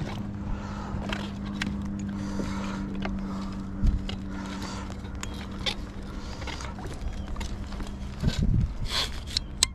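Scattered knocks and clatter of a landing net being handled against a plastic fishing kayak while a chain pickerel is netted, with a sharper knock about four seconds in. A low steady hum runs underneath and stops about eight seconds in.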